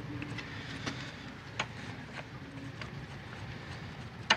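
A few light clicks and knocks from a hand working a sailboat's rope clutches and the lines running through them, the sharpest one near the end, over a faint steady hum.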